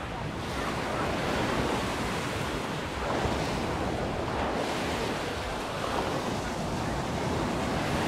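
Sea waves washing onto the beach, a steady rush that swells now and then, with wind on the microphone.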